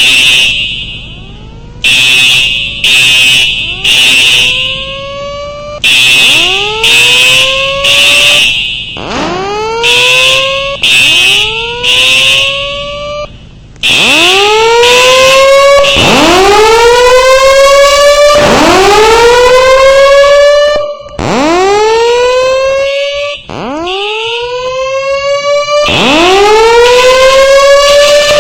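Building fire alarm sounding loudly. Harsh horn blasts come in groups of three short blasts with a pause between groups. Over them, electronic siren whoops each rise in pitch over about two seconds, and in the second half these whoops take over.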